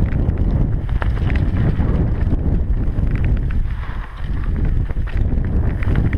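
Mountain bike rattling down a rough, rocky singletrack: wind rumbles on the camera's microphone, with frequent knocks and clatter from the bike and tyres over stones. It eases briefly about four seconds in.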